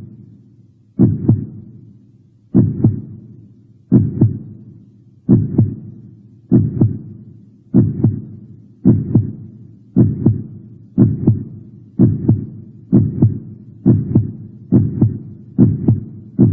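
Heartbeat sound effect: a steady double thump repeating and speeding up, from about one beat every one and a half seconds to nearly one every 0.8 s.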